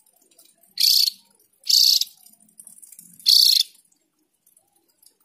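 Javan grey-throated white-eye (opior jawa) giving three short, high-pitched calls, each about a third of a second long and spaced roughly a second apart, then falling silent.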